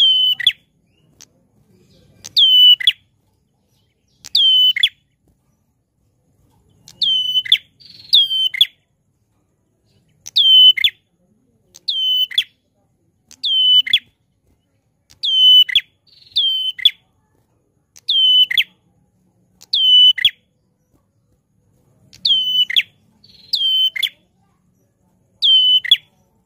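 Caged prenjak klawu calling loudly and tirelessly: a sharp, high note that drops quickly in pitch, repeated about once every second or so, now and then as a quick pair.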